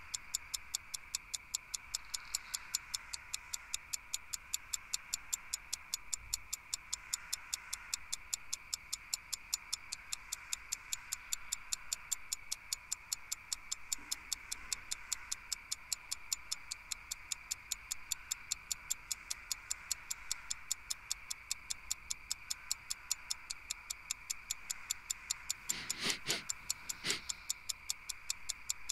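A clock ticking steadily in a quiet room, with two louder knocks near the end.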